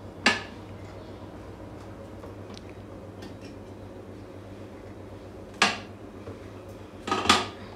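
Sharp plastic knocks and clatters as peeled orange pieces are dropped into the clear feed chute of a cold press slow juicer and its top is handled. There is one knock just after the start, another about two-thirds of the way in, and a louder double clatter near the end.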